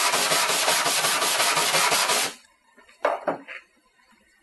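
Small hand wire brush scrubbed rapidly back and forth across a bare aluminum body panel, cleaning off oxide just before stud welding. The scrubbing stops about two seconds in, and a single short knock follows about a second later.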